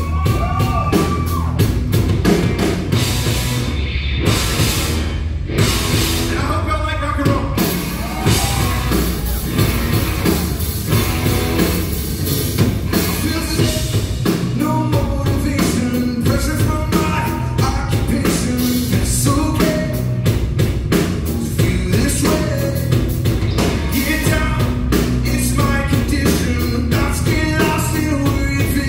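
A live rock band playing a song: drum kit keeping a steady beat under electric bass, with a man singing lead into a microphone.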